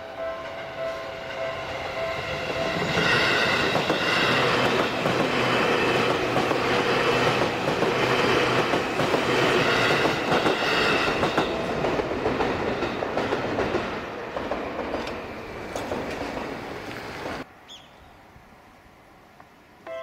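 Seibu Railway electric commuter train passing close by over a level crossing, wheels clacking over the rail joints. It builds over the first few seconds, is loudest for several seconds, fades, and cuts off abruptly near the end.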